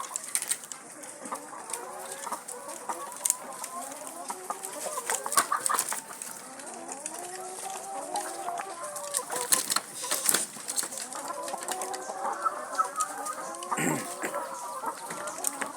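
A flock of laying hens clucking and calling, many short overlapping calls, with scattered sharp clicks.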